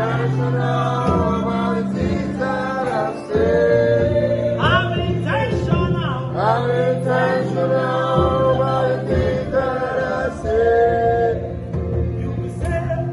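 Gospel song: singing voices hold long, bending notes over a steady sustained instrumental backing.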